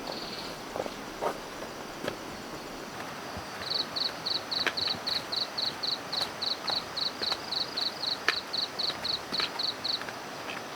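An insect chirping in a steady rhythm, about four short, high chirps a second, starting a few seconds in and stopping shortly before the end, over faint outdoor background noise with a few light clicks.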